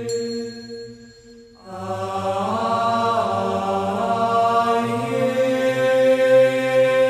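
A vocal group singing long held chords in close harmony. The sound dies away for about a second, then the voices come back in, gliding up into a new chord that they hold.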